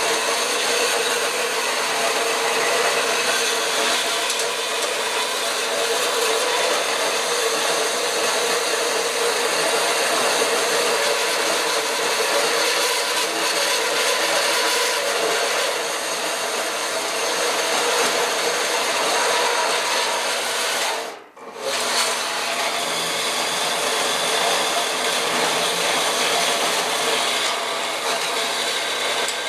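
Portable horizontal metal-cutting band saw running, its blade cutting through flat bar stock with a steady sawing noise. The sound breaks off for a moment about two-thirds of the way through and then carries on.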